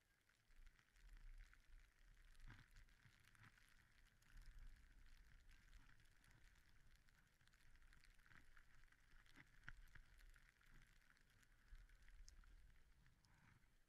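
Faint hiss and scattered crackle of a snowboard sliding through soft snow, over a low rumble.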